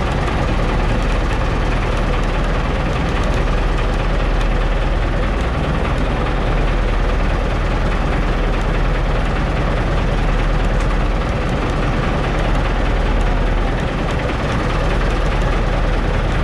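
Outrigger fishing boat's engine running steadily, loud and unchanging.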